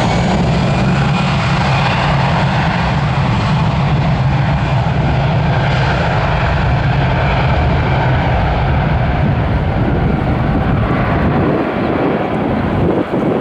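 Jet noise from an Airbus A320-214's two CFM56 turbofan engines at high power as the airliner rolls down the runway, most likely on its takeoff roll. The sound is a steady, loud rumble and hiss that grows duller in its upper range in the last few seconds as the jet moves away.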